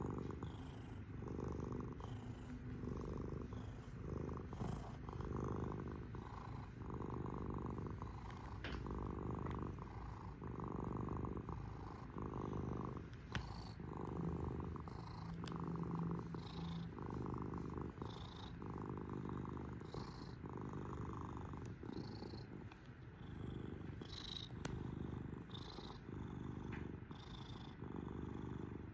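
Domestic cat purring steadily, the purr swelling and fading in a slow, even rhythm.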